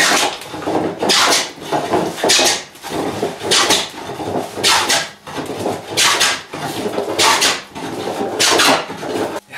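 No. 4 hand smoothing plane pushed in repeated passes over a rough plank, about eight strokes, each a rasping cut ending in a brighter hiss. The board has a low spot, so the plane cuts only before and after it on each pass.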